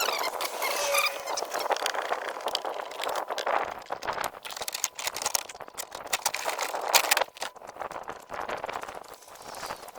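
Hand work on the air-cooler frame's fittings: irregular clicking, scraping and rattling of bolts, nuts and the frame as a coach bolt is worked into its thread, with a brief squeak about a second in and a sharper click near seven seconds.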